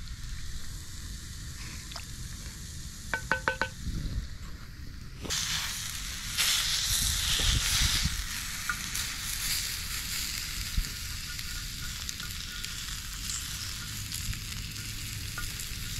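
Catfish fillets sizzling on a cast-iron Dutch oven lid over campfire coals. A few ringing metal taps come about three seconds in, and the sizzle grows much louder about five seconds in, as a wooden stick moves the fillets.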